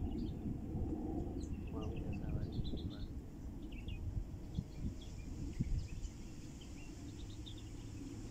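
Sparrows chirping, many short high chirps scattered through the whole time, over a steady low background rumble.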